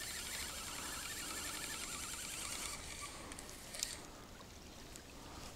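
Faint splashing and rustling as a small hooked zander is brought out of the water and handled, with a couple of light clicks a little past the middle.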